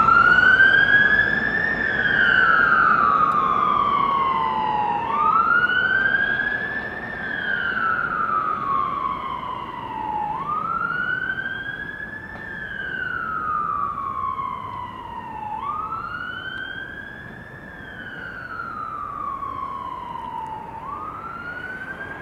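Fire engine siren sounding a slow wail: each cycle climbs quickly and then falls slowly, repeating about every five seconds, and it grows steadily fainter as the appliance drives away on an emergency call.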